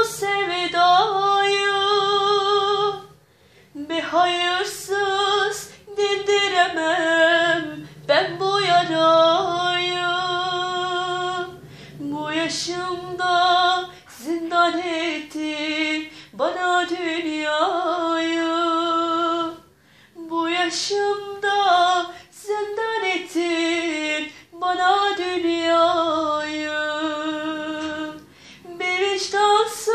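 A female voice singing a slow Turkish song solo, phrases of a few seconds with long held notes and short breaths between them.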